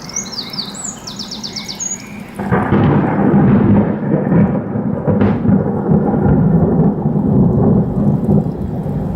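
Birds chirping, then about two and a half seconds in a loud, sudden rumble of thunder from a close lightning strike breaks in and rolls on without letting up.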